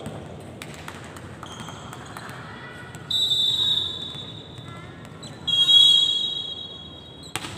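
Referee's whistle blown twice in a large sports hall: a short steady blast about three seconds in, then a louder, longer blast at about five and a half seconds, the umpire's signal to serve. Near the end a sharp smack of a volleyball being struck on the serve.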